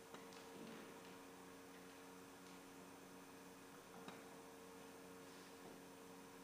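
Near silence: church room tone with a steady low hum and a couple of faint clicks.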